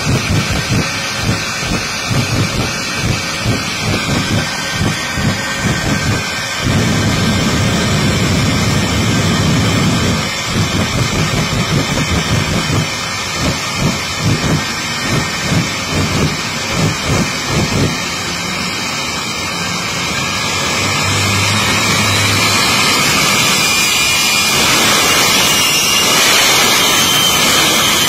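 Shockwave jet truck's three Pratt & Whitney J34 jet engines running, with repeated low booming pulses, about two a second, as flames burst from the smokestacks. From about twenty seconds in, the pulses stop and a steady rushing jet noise builds louder to the end.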